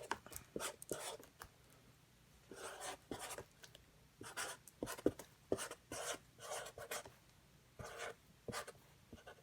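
Sharpie marker scratching across a surface in short, repeated drawing strokes, coming in groups with brief pauses between them.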